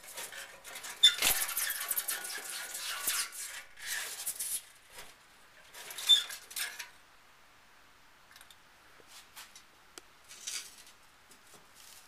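Scratching and scraping inside a metal wood-stove flue pipe as its damper is turned and a trapped bird scrabbles on it, with two short squeaks about a second in and about six seconds in. The noise is loudest in the first few seconds, then thins to faint scattered scratches.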